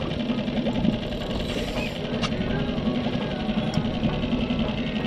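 Suzuki outboard motor running steadily at low speed, a fast even chugging close to the microphone, under background music.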